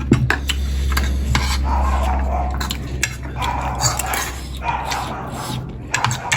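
Metal cutlery scraping and clinking against a plate as food is stirred and mixed, with irregular clicks throughout. A steady low hum sits underneath and fades out near the end.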